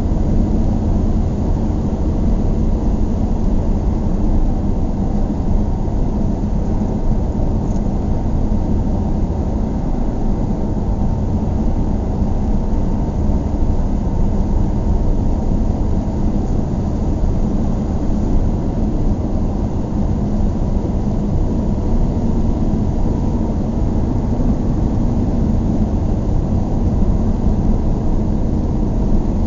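Car driving at a steady speed, heard from inside the cabin: a constant low engine and road rumble with no marked changes.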